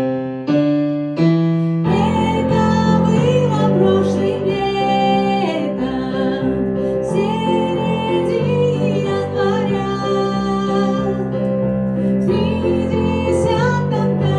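Keyboard playing chords as a song's accompaniment between verses, with a woman's singing voice over it from about two seconds in.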